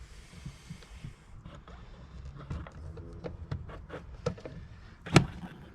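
External power socket housing being worked into a cut hole in a motorhome's side wall to test the fit: light scrapes and small clicks, with one louder knock about five seconds in.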